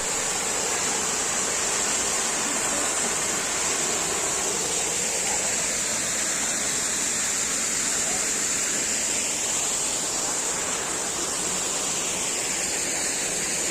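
Waterfall pouring down from a hilltop, a steady, even rush of falling water.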